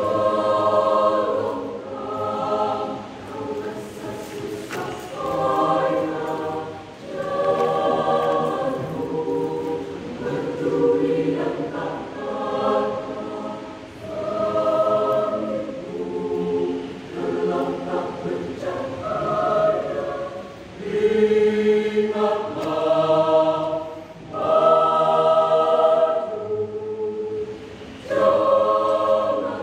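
Church youth choir singing together, in sung phrases of a second or two separated by brief pauses for breath.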